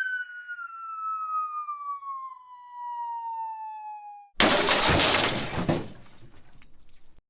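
A falling-whistle sound effect, one tone sliding steadily down in pitch, then a sudden loud crash and shatter that dies away over a couple of seconds, marking the FPV drone's crash.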